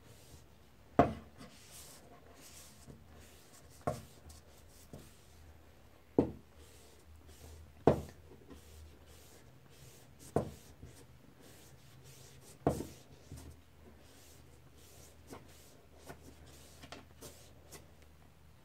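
Cloth wiping along a laser printer's charge roller, a faint rubbing broken by six sharp knocks about two to three seconds apart, then lighter taps near the end.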